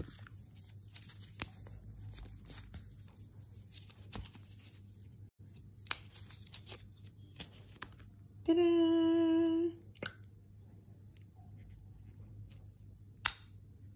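Quiet handling of an AirPods 4 box and its paper wrap: cardboard and paper rustling and tearing, with small clicks as the lid and tray come apart and the charging case is lifted out. Around eight and a half seconds in, a loud steady tone sounds for just over a second.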